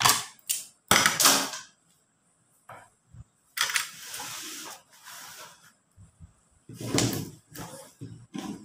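Small scissors snipping through thin popiah wrappers, with the papery sheets rustling and a few knocks against plates. The sounds are short and irregular, with a longer rustle about four seconds in and the loudest knock about seven seconds in.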